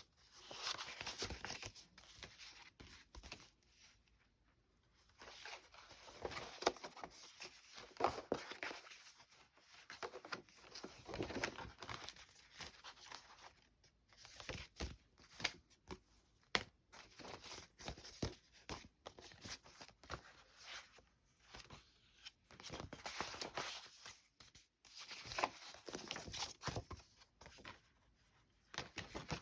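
Paper greeting cards being handled and shuffled through: irregular rustling and crinkling of paper, coming in clusters with short pauses.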